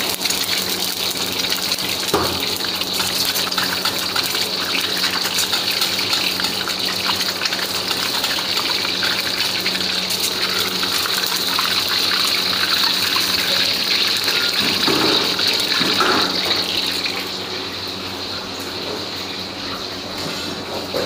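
An egg frying in hot oil in a carbon-steel wok, a loud steady sizzle with fine crackling, and the metal spatula scraping the pan a few times. The sizzle drops away about three-quarters of the way through.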